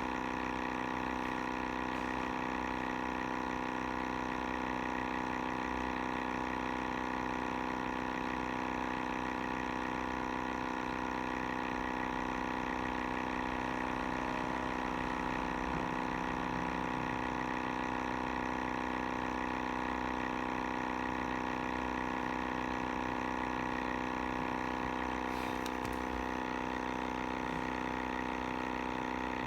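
Sibata air sampler's pump motor running steadily: an even hum with a high whine that holds the same pitch throughout.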